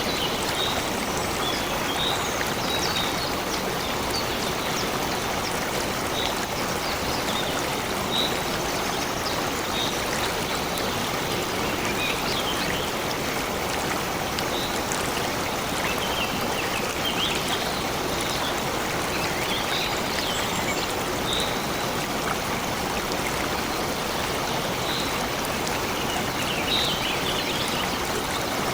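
A stream flowing steadily, with small birds chirping briefly now and then above the sound of the water.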